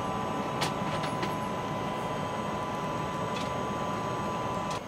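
Steady hum of the International Space Station's cabin fans and ventilation, with a constant whine running through it and a few light clicks.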